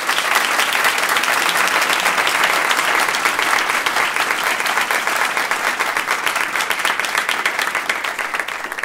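Audience applauding, a dense, steady round of clapping.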